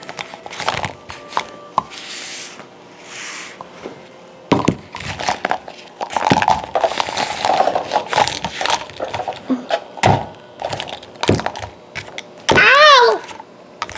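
Plastic toy figures knocking and clattering against a hard surface as they are moved about by hand, in a string of separate knocks with a denser run of clatter midway. Near the end there is a short cry that rises and falls in pitch.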